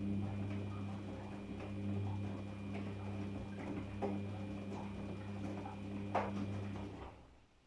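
Daewoo DWD-FT1013 washing machine running with a steady electrical hum and scattered light clicks and knocks, cutting off about seven seconds in.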